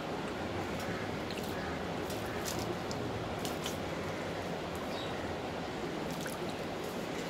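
African grey parrot bathing in a shallow metal bowl of water, flapping its wings and dipping in, with scattered small splashes and drips over a steady background noise.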